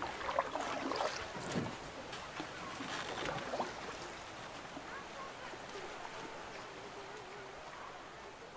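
Water lapping and a plastic kayak being handled at a river's edge, with short knocks and splashes in the first few seconds.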